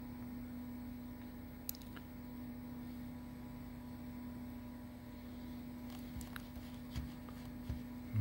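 Steady low hum and fan noise of a running desktop computer, with a few faint clicks in the second half.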